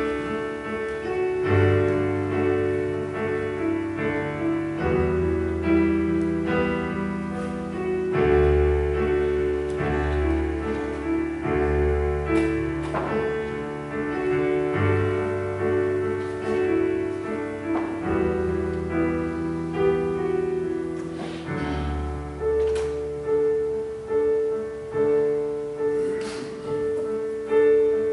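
Solo piano playing a slow piece of held chords, the bass note changing about every two seconds.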